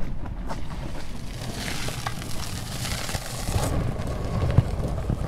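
Wind rumbling steadily on the camera microphone while a plastic Hobie kayak is moved over gravel and concrete toward the water. A hissing scrape of the hull on the ground runs for about two seconds in the middle, with a few light knocks.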